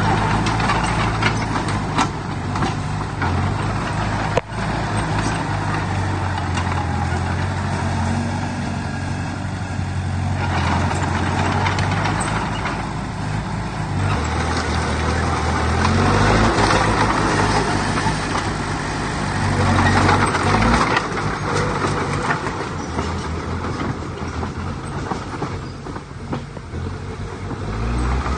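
Heavy diesel engines of earthmoving machines running under load, their pitch rising and falling several times as they rev up and ease off.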